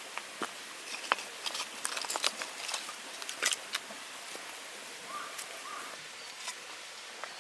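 Scattered light clicks and knocks, densest in the first half, over a steady hiss.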